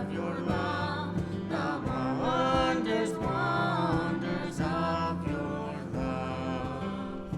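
Music: singing over instrumental accompaniment.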